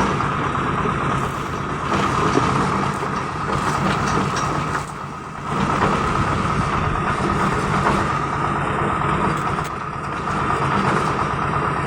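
Concrete mixer machine running steadily with a constant engine hum, dipping briefly about five seconds in.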